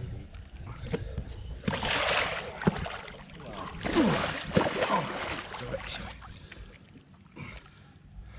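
A large Siamese carp kicking its tail while held in shallow water, sending up heavy splashes in two bouts, about two seconds in and again about four seconds in.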